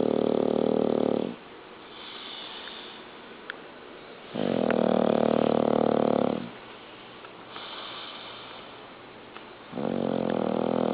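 A sleeping pet snoring loudly in a slow, steady rhythm: three long, buzzing snores about two seconds each, with softer breathy sounds between them.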